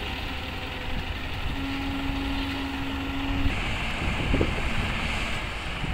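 Diesel engines of tracked hydraulic excavators running, a steady low rumble, with a steady tone held for about two seconds in the middle.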